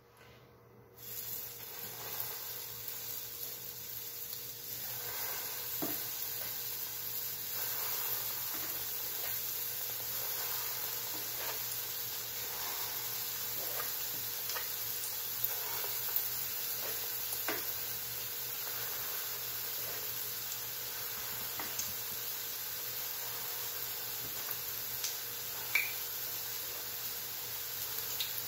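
Akara (bean fritter) batter frying in hot oil in a frying pan, a steady sizzling hiss that starts about a second in and grows a little a few seconds later as more spoonfuls go in. A few faint clicks sound through it.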